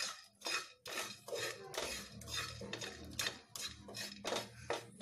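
Spatula scraping and knocking against a non-stick pan, about three strokes a second, as fenugreek seeds and spices are stirred while dry-roasting.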